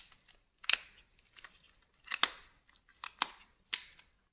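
Earth-leakage circuit breakers being switched back on one after another after tripping in a test: five or six sharp snaps of their toggle handles, irregularly spaced, the loudest about two seconds in.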